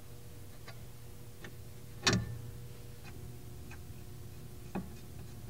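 A handful of light metallic clicks and knocks as the new control arm's outer ball joint is seated in the steering knuckle and its nut is started by hand. The loudest knock comes about two seconds in and another near the end, over a steady low hum.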